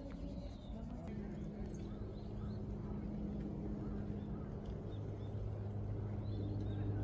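Outdoor ambience of people's voices in the distance, with a few short bird chirps and a steady low hum that grows a little louder toward the end.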